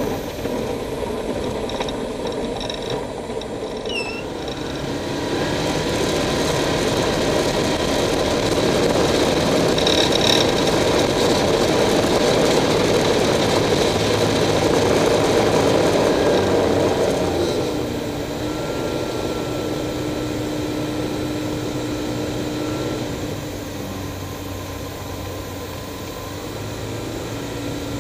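Light aircraft's engine and rushing air heard from inside the cockpit. The power comes up about five seconds in, holds, and is pulled back about seventeen seconds in, after which a thin steady whine is heard for a few seconds.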